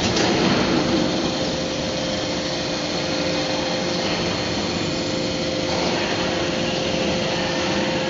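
Hydraulic briquetting press running, its hydraulic pump and motor humming steadily with a held whine as the ram compacts aluminium powder into round briquettes.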